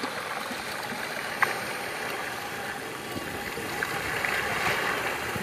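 Steady rush and slosh of shallow water churned by the knobby tyres of a four-wheel-drive power wheelchair driving through it, with one faint click about a second and a half in.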